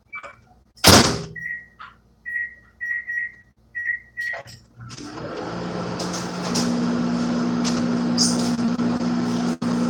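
Microwave oven being started: a knock as the door shuts, a string of short high keypad beeps, then the oven running with a steady fan noise and low electrical hum from about five seconds in.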